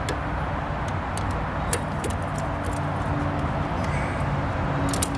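Ratchet strap's ratchet mechanism clicking irregularly as it is worked, jammed and not releasing, over a steady low background rumble.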